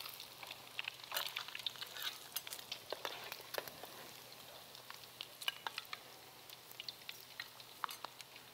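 Egg and crab omelet frying in hot oil in a wok: a faint sizzle with irregular crackling pops as the egg sets into a shell around the crab.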